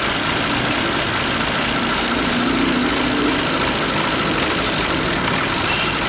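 Car engine idling steadily with a rapid metallic knocking in its running, the symptom of engine knock.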